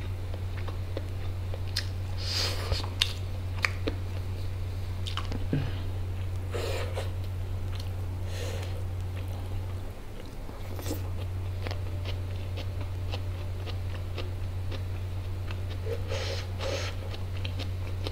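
Close-miked eating of hand-fed biryani rice: chewing and biting sounds come in short bursts every few seconds, with small clicks. A steady low hum runs underneath and drops out briefly about ten seconds in.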